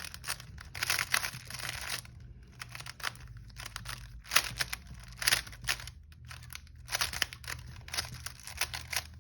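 Plastic Rubik's cube layers being turned fast by hand during a speedsolve: rapid runs of clicking and clacking with brief pauses between move sequences and a few louder snaps.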